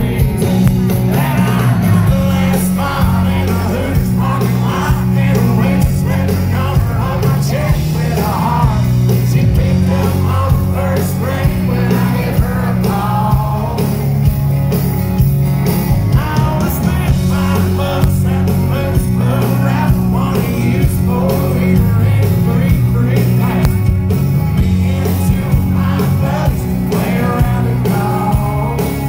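Live country band playing loud, with a man singing lead over guitar and a heavy bass-and-drums backing, heard from the audience.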